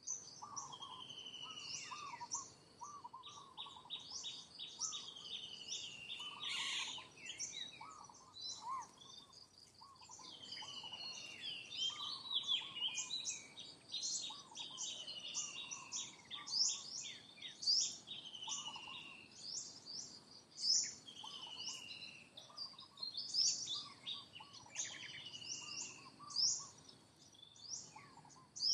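Several birds singing and calling together: a dense run of quick high chirps with repeated falling whistled notes and lower warbled notes mixed in.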